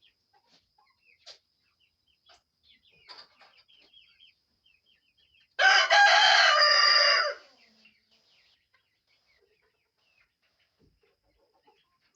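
A rooster crows once, loud, for about two seconds, a little over five seconds in. Faint short chicken clucks come before and after it.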